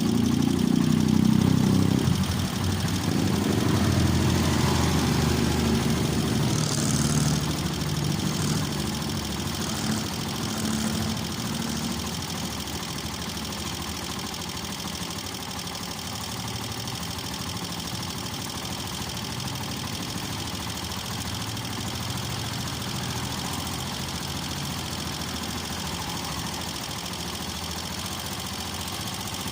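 Honda TMX125 Alpha's single-cylinder four-stroke engine running, louder over the first several seconds and then settling to a steady idle.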